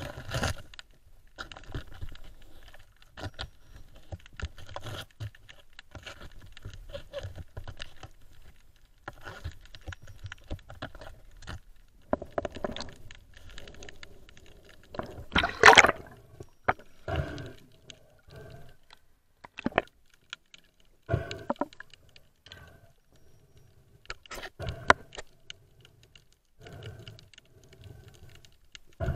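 Underwater sounds heard through a camera housing: irregular clicks, knocks and scrapes, with one louder rush about halfway through.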